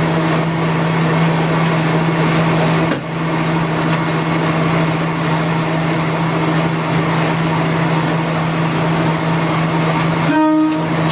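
Diesel railcar running along the line, its engine giving a steady low drone over the rail and running noise. Near the end the horn gives one short toot, about half a second long.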